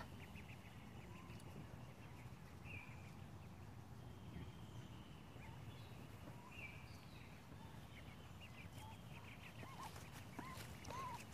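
Ducklings peeping faintly in the grass, with scattered short calls that come more often over the last few seconds.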